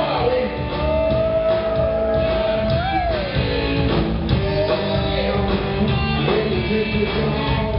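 Rock band playing live, with electric guitar, bass and drums. A lead line holds one long note, bends it up about three seconds in, then slides it down.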